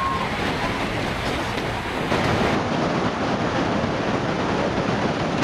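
Steady rushing noise of storm floodwater, with a cut to another stretch of similar noise about halfway through.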